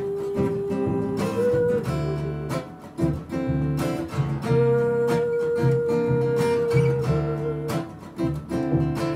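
Strummed acoustic guitar with a plucked double bass underneath and a woman's voice holding long sung notes. The longest held note runs through the middle.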